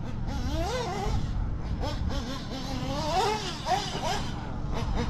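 Modded Novarossi P5-based nitro engine in a radio-controlled car revving hard and dropping back over and over as the car is driven around the track, its high pitch swooping up and down several times.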